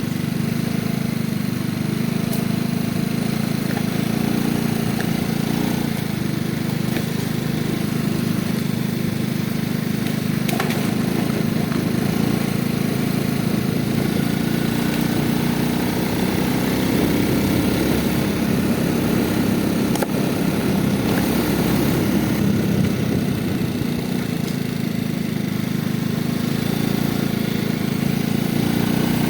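A motor vehicle's engine running steadily at low speed, a continuous low hum without revving.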